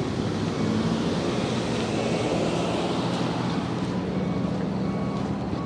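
Steady rush of ocean surf and wind on the microphone, with a low steady hum underneath.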